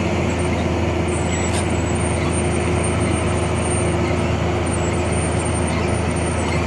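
A heavy truck on the move, with a steady engine drone, road noise and a constant hum that holds unchanged throughout.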